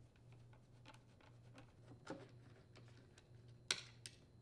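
Faint, scattered clicks and light taps of a Torx driver working the screws on the blower's plastic housing, with two sharper clicks near the end, over a faint low hum.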